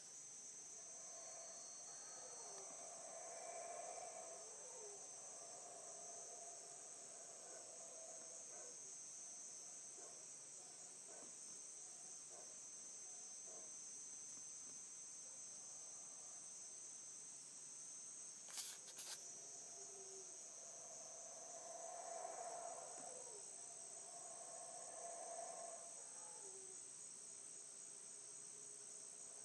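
Faint, distant roaring of Yucatán black howler monkeys in two drawn-out bouts, a few seconds in and again after about twenty seconds, over a steady high chorus of crickets and other night insects. Two short clicks come just before the second bout.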